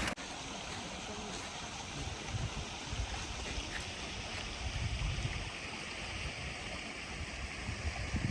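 Steady rush of flowing stream water, with wind now and then buffeting the microphone in low rumbles.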